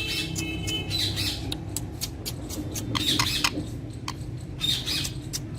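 Ringneck parrot giving about four short, harsh squawks, with sharp clicks scattered between them.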